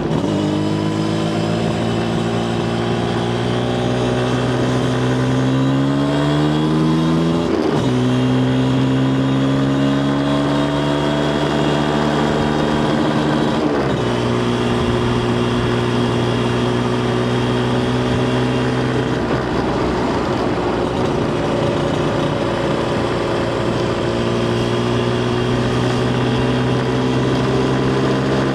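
Yamaha TZR250 1KT's two-stroke parallel-twin engine running under way, its pitch climbing slowly and dipping twice at gear changes, about a quarter and halfway through, then holding a fairly steady cruise.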